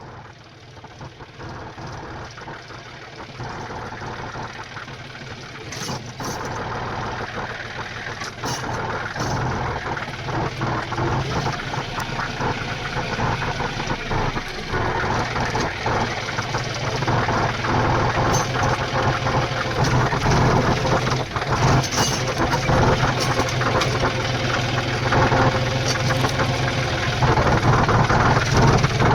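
Tractor diesel engine running steadily, growing louder throughout, with a few sharp clicks or knocks over it.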